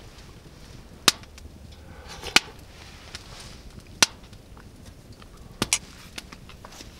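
A spoon clicking against a bowl of hot soup: five sharp, separate clicks, the last two close together.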